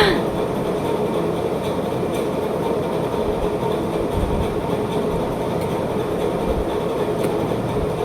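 Steady mechanical whirring noise with a faint hum.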